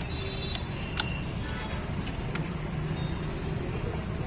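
Steady low rumble of a vehicle engine running, with a couple of short, light metallic clicks about one and two and a half seconds in.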